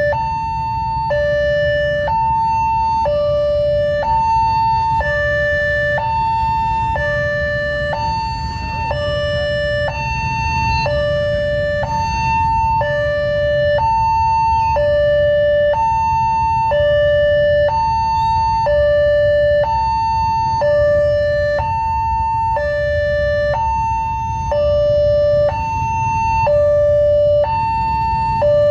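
Railway level crossing warning alarm: an electronic signal that alternates between a high and a low tone, each held about a second, sounding steadily while the barrier is down for an approaching train. A low traffic rumble runs underneath.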